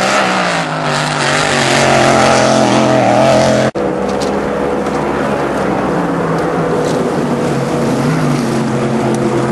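Racing powerboat outboard engines running at high revs as the F1 tunnel boats race past, their pitch shifting. An abrupt cut nearly four seconds in is followed by a steadier, lower boat-engine note.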